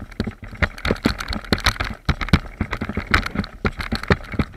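Quick, irregular footsteps crunching through dry grass and brush, with gear rattling and a low wind rumble on a body-worn camera's microphone.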